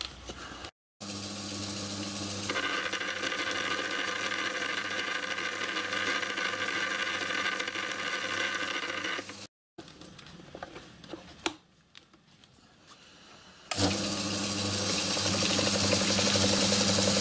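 Small belt-driven watchmaker's lathe running under an electric motor on its first power-up, a steady hum with a higher whirr from the belt and headstock spindle. It stops about halfway through, a few light clicks follow, and it runs again near the end.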